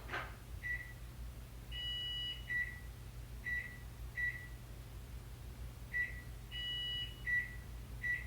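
Smart microwave oven beeping on its own with nothing inside: short single high beeps about a second apart, with two longer two-tone beeps, about two seconds in and about seven seconds in. The owner takes the beeping for a sign that the power went out.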